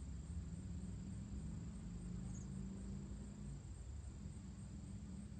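Insects trilling in a steady, high, thin tone with a faint regular pulse, over a low rumble.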